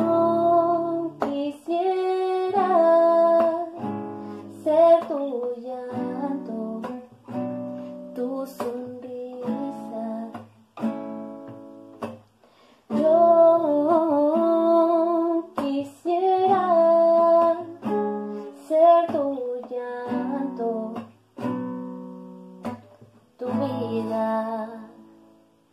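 Nylon-string classical guitar playing a slow ballad outro, with a woman singing long held notes over it. The playing comes in phrases with short pauses, and the last chord fades out near the end.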